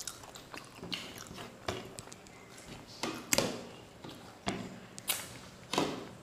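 Eating sounds of rice being eaten by hand: mouth smacks and chewing with soft clicks of fingers on plates, about seven short sharp sounds at irregular intervals.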